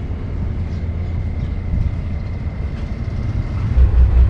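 Ferry boat's engine running with a steady low rumble. Near the end a louder low throb sets in, pulsing about four times a second.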